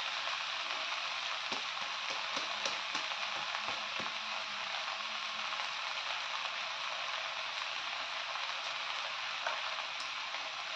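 Frying sizzle from a hot pan of just-added rice and fried vegetables for veg pulao, a steady hiss, with a few light clicks in the first few seconds.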